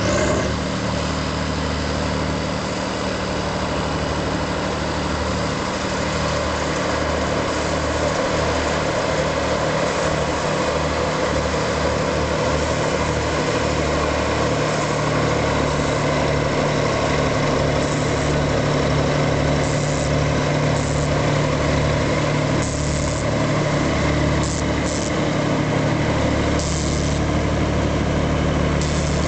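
Heavy diesel engines of large articulated tractors, a Rába-Steiger and a Kirovets K-700, running steadily as the tractors drive over chopped silage to pack it down.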